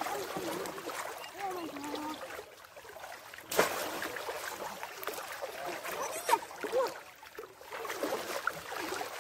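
Water splashing and sloshing as people wade through shallow floodwater and plunge a bamboo fish trap into it. There is one sharp splash about three and a half seconds in and two smaller ones around six to seven seconds.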